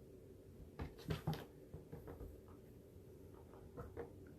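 Faint handling noises: a few short soft clicks and rustles about a second in, and a few more near the end, over a low steady hum.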